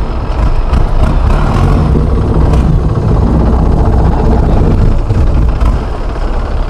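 Boat engine running steadily, a loud low drone with a hissing noise layered over it.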